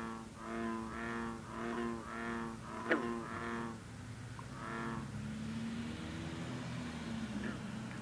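A frog in a marsh chorus of green frogs and bullfrogs calls a run of about seven deep notes, roughly two a second, then gives one more after a short pause. A brief sharp falling chirp cuts in about three seconds in, over a low steady background of distant frog calls.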